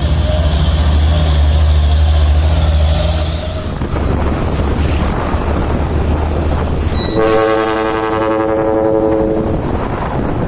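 A truck engine running with a low rumble, then about seven seconds in a dump truck's trumpet air horn sounds one blast of about two and a half seconds.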